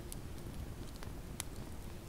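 Campfire crackling faintly: a few sharp pops over a low steady rumble.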